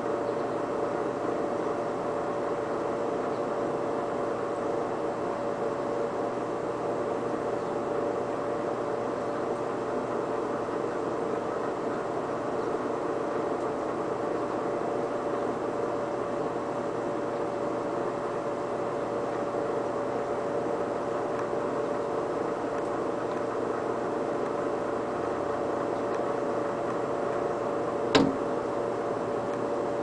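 Air conditioner and fan running together: a steady hum with a constant mid-pitched tone. A single sharp click sounds near the end.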